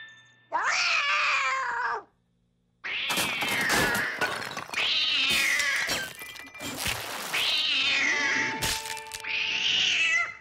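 Cartoon cat yowling loudly: about five long drawn-out meows that fall in pitch, one after another, with crashes of breaking glass and china between them.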